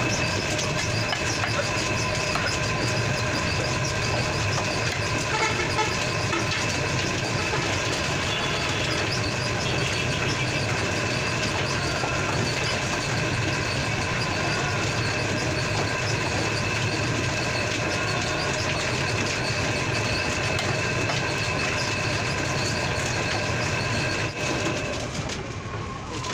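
A steady machine drone with several fixed tones over a low hum, cutting off about 24 seconds in.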